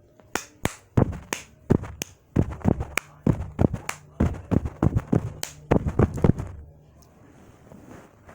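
A quick, uneven run of sharp taps and knocks, about three to four a second, that stops about six and a half seconds in.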